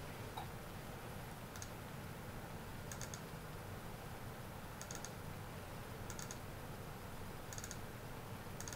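Computer mouse clicking, mostly in quick double-clicks, about five times a second or so apart, over a faint steady low hum.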